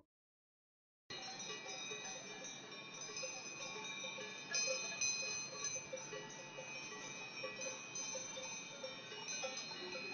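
Many small bells clinking and ringing continuously, starting about a second in.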